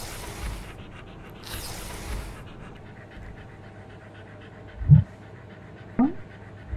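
A dog panting quickly and evenly, with two whooshing swishes in the first two seconds and a few short, low, punchy sounds in the last two seconds, the loudest about five seconds in.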